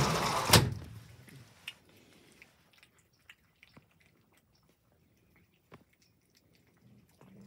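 Cats chewing wet cat food, heard as faint scattered smacks and clicks. In the first second a louder rustling noise ends in a sharp knock.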